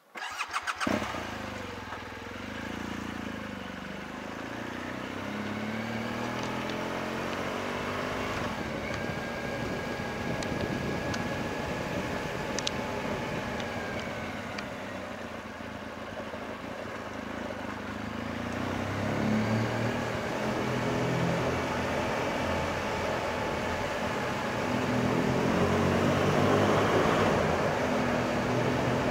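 BMW R1200GS Adventure motorcycle's boxer twin engine running as the bike is ridden, its pitch rising and falling with the throttle. Rushing wind noise grows louder in the second half.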